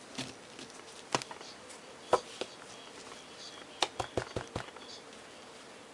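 Trading cards being handled on a table: a few isolated sharp taps and clicks, then a quick run of five or six taps near the end.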